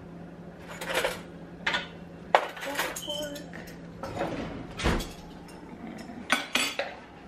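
Metal cutlery and dishes clinking: a string of sharp clinks and knocks as a fork is fetched and a plate is handled, over a low steady hum.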